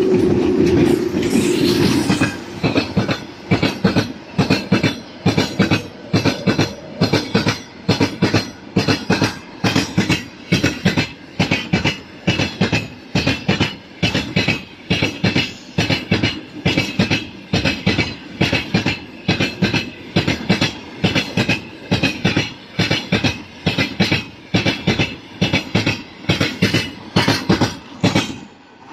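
Freight train rolling past at speed behind VL11 electric locomotives, its wagon wheels clacking over rail joints about twice a second in a steady rhythm. For the first couple of seconds a steady hum with a held tone is loudest. The clacking stops near the end as the train passes.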